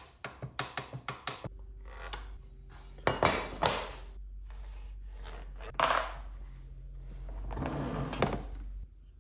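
A metal speed square and a pencil clicking and clattering as they are handled on a bamboo cutting board, then pencil strokes scraping across the wood while center lines are drawn. A steady low hum sits underneath from about a second and a half in until just before the end.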